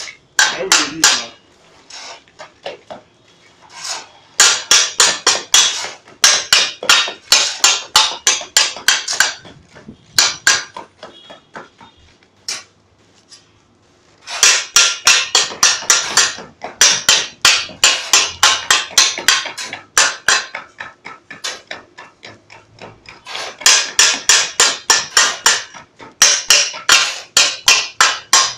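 Rapid repeated striking on a concrete stamping mat pressed onto a fresh concrete floor. The blows come in runs of several seconds at about four a second, with short pauses between runs.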